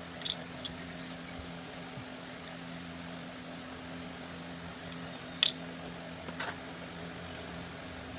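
A few sharp clicks and ticks of small hand tools working on cut power wires, the loudest about five and a half seconds in, over a steady low two-tone hum.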